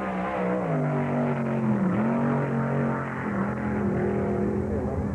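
Rail dragster's engine running hard down the drag strip: a steady drone whose pitch drops about a second in, dips near two seconds and climbs again a little past three seconds.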